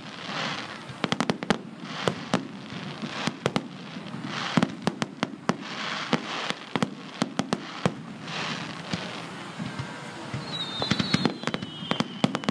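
Fireworks display: aerial shells bursting in many sharp bangs, some in quick clusters, with spells of crackling hiss between them.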